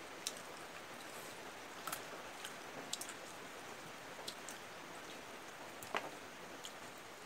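Eating by hand: scattered small clicks and mouth smacks from chewing and from fingers working rice on plates, over a steady background hiss. The sharpest click comes about six seconds in.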